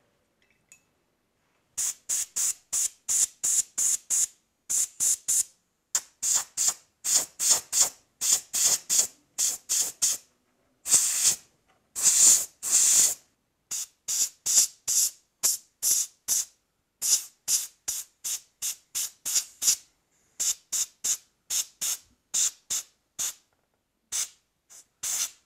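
Airbrush spraying paint in short bursts, two or three hisses a second, starting about two seconds in, with a couple of longer sprays around the middle.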